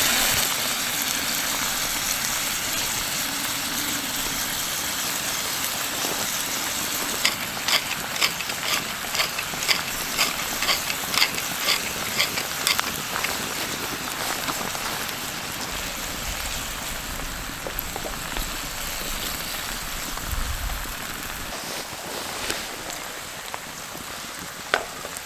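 White cabbage and mushrooms sizzling steadily in a cast iron pan over a campfire as their moisture cooks off, slowly getting quieter. A run of sharp crackles and pops comes through the hiss in the middle.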